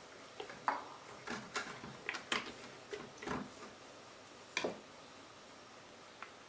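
Light, irregular clicks and clacks of plastic kitchenware being handled: a bottle's flip-top cap worked open and plastic measuring spoons knocking together. There are about a dozen, with the loudest clack near the end.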